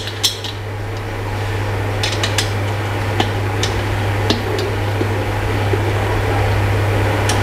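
A few light metallic clicks and taps, spread over the first half, as a metal dining-chair frame is handled and fitted together by hand, over a steady low hum.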